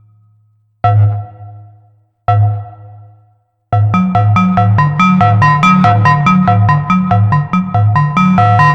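Arturia MiniBrute 2 analog synthesizer playing a bass patch: two single plucked bass notes that ring and die away, then about four seconds in a fast sequenced bass line starts, jumping between a low note and its octave, with sharp bright attacks on every note.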